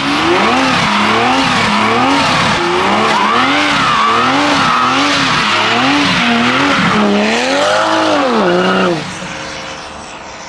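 Toyota A90 Supra's turbocharged B58 inline-six, fitted with an MST intake, held at high revs in a burnout, its pitch rising and falling over and over while the rear tyres squeal. The sound drops away sharply about nine seconds in.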